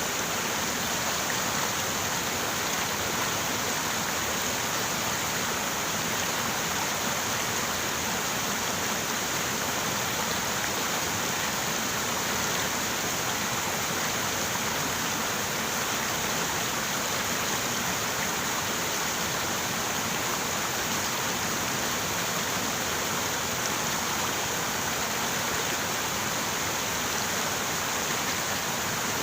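River water running steadily, a constant rushing flow.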